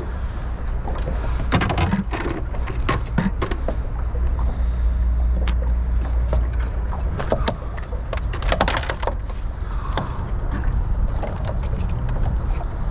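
Steady low hum with scattered clicks, knocks and rattles of gear and tackle being handled aboard a small fishing boat.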